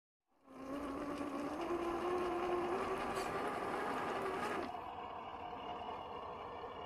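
Electric motor and gears of a 1/10-scale RC crawler whining as it drives in sticky mud, starting about half a second in and rising slightly in pitch over the next two seconds. About four and a half seconds in, the sound cuts off sharply and a quieter, steadier whine follows.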